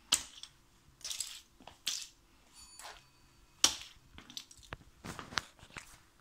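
Sneaker soles crushing small figurines on a hard floor: a string of sharp crunches and cracks as the pieces break and scrape, the loudest a little past halfway.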